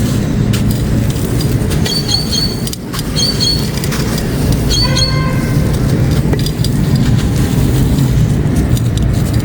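Grey concrete being crumbled and crushed, a continuous gritty crunching and grinding with scattered sharp crackles.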